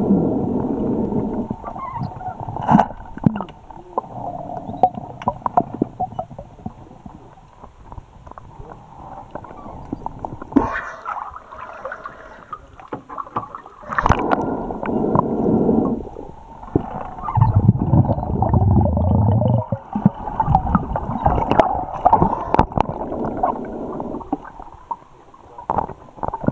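A diver's breathing underwater, with bursts of exhaled bubbles gurgling every few seconds and a few sharp knocks.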